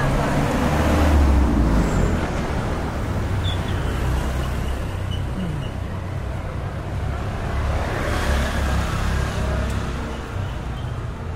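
Street traffic: cars and motor scooters driving past, a steady low engine rumble with two louder passes, one in the first couple of seconds and one about eight seconds in.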